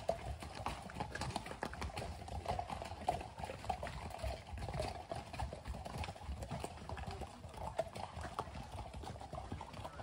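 Hooves of several saddle horses clopping at a walk on a wet gravel trail as a string of trail-ride horses passes, with many irregular hoof strikes.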